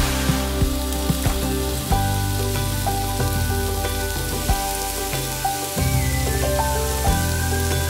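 Firm tofu cubes sizzling in hot oil in a wok. The sizzle starts suddenly as the cubes hit the oil and then runs on steadily as they fry, with soft background music throughout.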